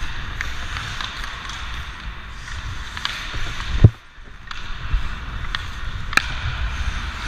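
Ice hockey skates carving and scraping on rink ice, picked up by a body-worn GoPro with low rumble on the microphone. A loud thump about halfway through, and a sharp clack a little later.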